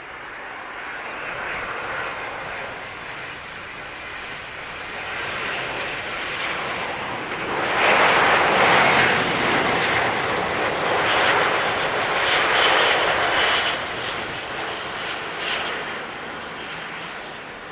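Boeing 777-200ER's GE90 turbofan engines, a rushing jet roar that builds, is loudest about halfway through, then fades as the airliner comes in to land.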